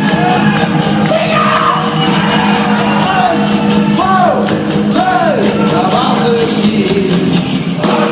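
Live rock band playing with a steady drum beat, while a crowd sings and shouts along in a large hall.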